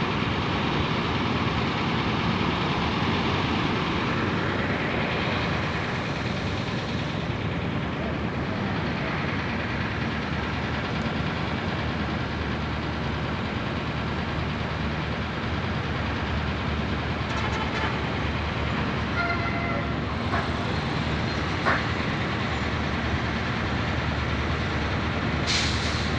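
Steady din of large vehicle engines idling, buses and trucks waiting at a ferry port, with a short pitched tone about two-thirds of the way through and a brief high hiss near the end.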